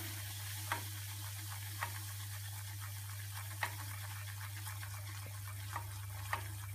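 Flour frying in hot oil in a kadai with a faint steady sizzle, as a wooden spatula stirs it, knocking lightly against the pan now and then. This is the first stage of a white sauce, the flour being cooked in the oil.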